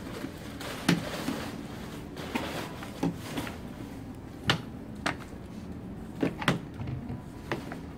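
Scattered light knocks and clicks of a mannequin being handled, about eight in all, as its arm is fitted into the shoulder socket and set in place.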